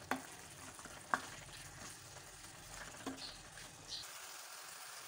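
Chicken karahi being stir-fried in ghee in a metal pan: a faint sizzle, with a few light scrapes and knocks of a wooden spatula against the pan. It is the bhuna stage, with the water cooked off and the ghee separated.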